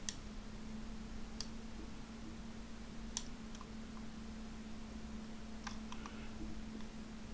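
Scattered clicks from a computer mouse, a second or two apart, with a quick run of three about six seconds in, over a steady low electrical hum.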